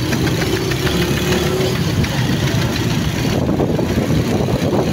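Steady engine and road noise of a moving bus, heard from inside the cabin.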